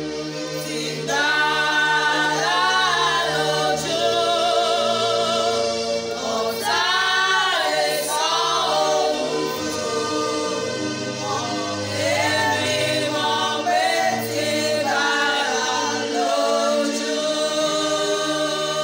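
Four women singing a Yoruba hymn together in sustained, wavering phrases.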